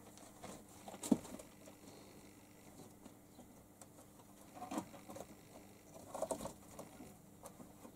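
A kitten's claws and paws scrabbling and knocking on cardboard as it climbs onto a box, in short scratchy bursts with a sharper knock about a second in.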